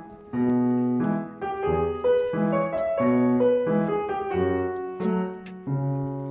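Background piano music: a tune of chords and single notes, a new note or chord struck every fraction of a second.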